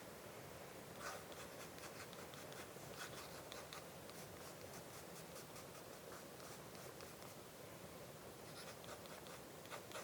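Dip pen's metal nib scratching faintly across sketchbook paper in many short, quick strokes, starting about a second in.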